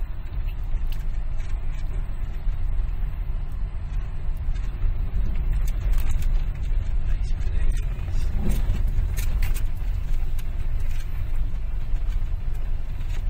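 Car driving on an unpaved sand and gravel track, heard from inside the cabin: a steady low rumble of tyres and road noise, with scattered clicks and rattles in the second half.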